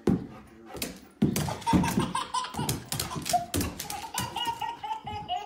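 A toddler laughing in short repeated bursts, over a clatter of sharp clicks and thumps from a dog's claws and paws scrabbling on a tile floor.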